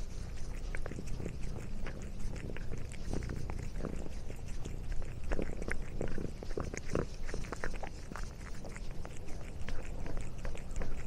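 A cat chewing and crunching on food: a run of irregular short crunches over a steady low rumble.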